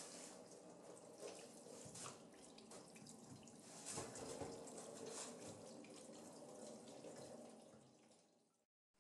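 Kitchen tap running onto a raw whole chicken as it is rinsed by hand over a bowl in a stainless-steel sink, with irregular splashing as the bird is turned under the stream. The sound fades out near the end.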